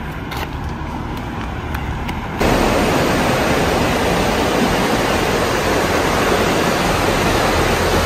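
Fast-flowing river rushing as a loud, steady wash of water noise, cutting in abruptly about two and a half seconds in. Before that there is only a quieter low rumble.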